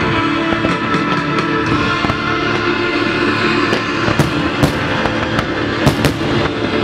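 Loud classic rock music over a fireworks display. From about four seconds in, several sharp firework bangs and cracks sound over the music as comets and shells burst.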